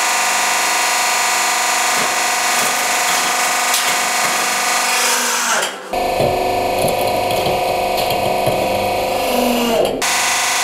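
Hydraulic press's pump motor running steadily: a loud whine made of several steady tones, with faint clicks. About six seconds in the sound changes abruptly to a fuller, lower hum with scattered clicks and crackles as the ram comes down on a toy crown. Near the end it switches back to the earlier whine.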